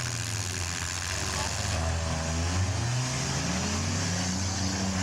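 Compact demolition-derby car engines revving, one climbing in pitch about three seconds in, over a steady hiss of engine and crowd noise.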